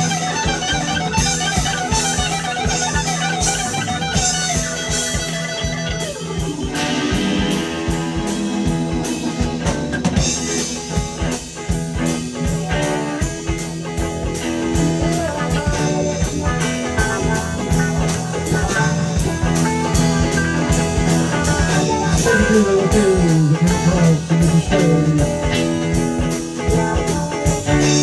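Live band playing an instrumental jam with no singing: electric guitars and keyboard over a steady drum beat.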